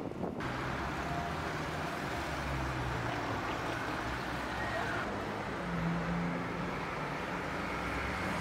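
Steady outdoor city traffic noise with the rumble of vehicle engines, louder from about half a second in.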